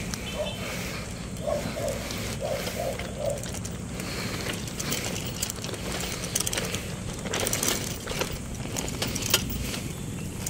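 Outdoor street and construction-area background: a steady low rumble with many scattered small clicks and knocks.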